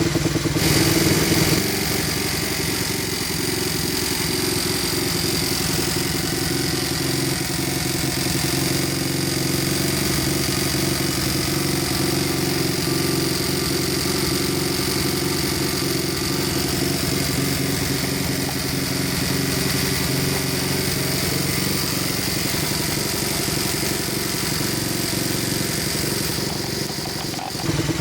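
Honda Monkey's small single-cylinder four-stroke engine running steadily, a little quieter after the first second or two and picking up again at the very end.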